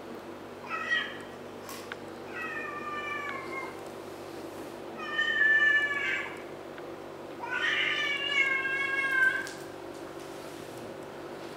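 A kitten yowling during a face-off with another kitten: four drawn-out calls, the first short and the last the longest, the low, warning cry of cats squaring off in a fight.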